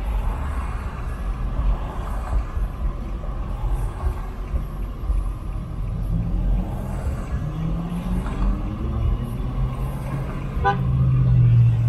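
Road rumble inside a moving pickup truck's cab, with a car horn honking at it from another vehicle. The horn blast is longest and loudest near the end.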